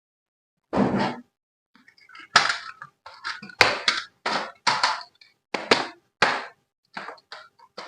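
Packaging being handled in a dozen or so short, irregular bursts of rustling and crinkling.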